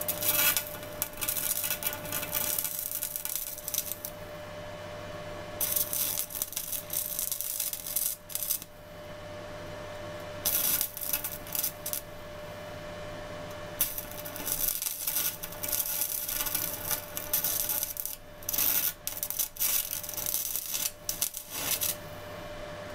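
Stick (MMA) welding arc from a 250-amp inverter welder crackling in four runs of about one to eight seconds, the arc breaking off and being restruck between them, as electrode weld is laid back into a hole burnt through a steel bar at turned-down current.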